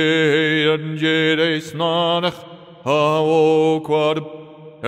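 A man chanting a meditative sound-healing chant in wordless syllables, holding long sustained tones whose pitch wavers and slides. It comes in two phrases, with a short break about two seconds in and a fade near the end.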